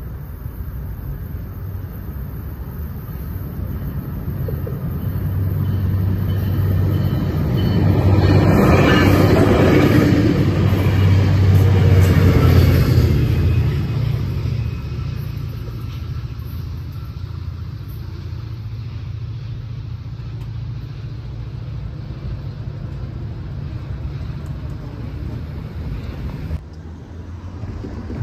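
A train passing a railroad grade crossing: a low rumble with a steady deep hum builds, peaks about eight to thirteen seconds in, then eases off to a lower steady rumble.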